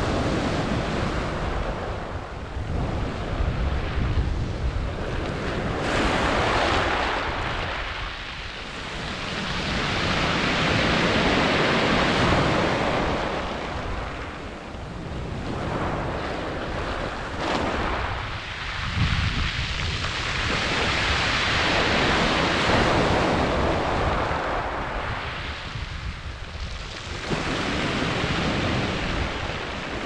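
Sea waves breaking on a shingle beach, the surf rushing up and draining back over the pebbles. The hiss swells and fades in several long surges, each several seconds long.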